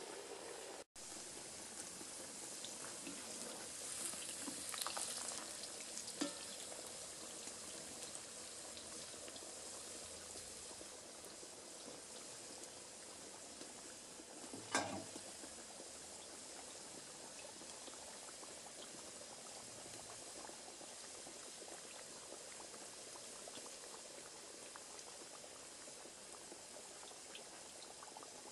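Chunks of chicken and potato deep-frying in hot oil in a cast-iron kazan: a steady bubbling hiss, with a couple of sharp pops, one about six seconds in and one about halfway through.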